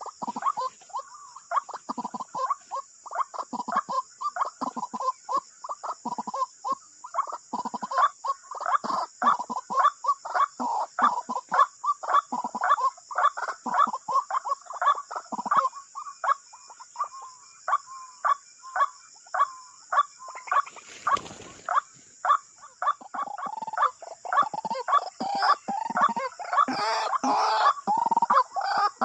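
White-breasted waterhens calling: a long run of short, repeated croaking notes, about two a second, growing denser and louder near the end, over a steady high hiss. A brief rustling noise breaks in about two-thirds of the way through.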